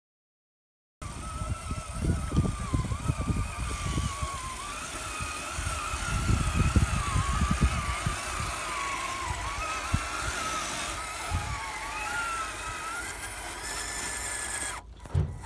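Electric motor and drivetrain of a radio-controlled scale crawler truck whining, the pitch wavering up and down with the throttle, over irregular crunching of its tires on loose dirt and rock as it climbs. It starts after about a second of silence and cuts off abruptly near the end.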